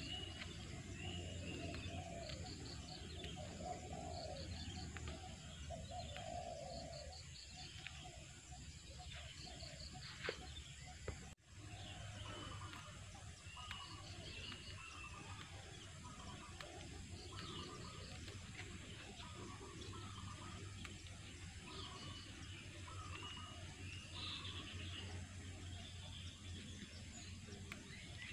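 Small birds chirping and trilling on and off, with a run of lower calls in the first several seconds, over a faint steady background.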